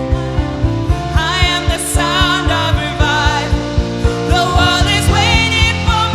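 Gospel band music with a steady drum beat; singing voices come in about a second in.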